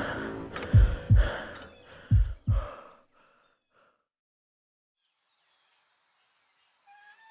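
Background music winding down with a few short, deep drum hits in the first three seconds, then silence.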